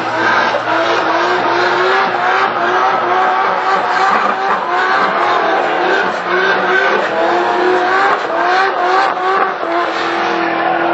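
Drift car's engine held at high revs, its pitch rising and falling in repeated surges, over the noise of the rear tyres spinning and screeching as the car slides sideways.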